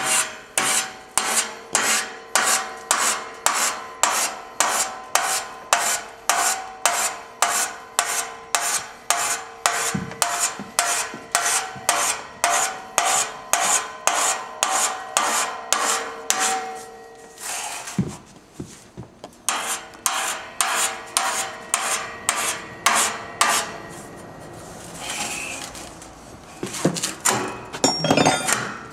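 Hand file rasping back and forth over the welded joint of a steel band saw blade, about two strokes a second, dressing the weld flush; the file only bites once the weld is no longer hard. The strokes stop about 17 seconds in, with a single knock, then resume, ease off and come back in a few strokes near the end, with a faint steady ring while the filing runs.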